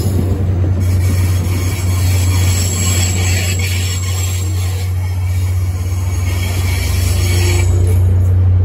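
Caltrain bilevel passenger cars rolling past on the adjacent track: steel wheels hissing and rumbling on the rails over a steady low drone, getting a little louder near the end.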